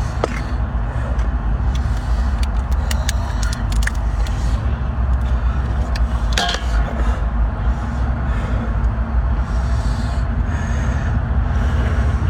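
Boat engine running with a steady low rumble, with a few sharp clicks over it.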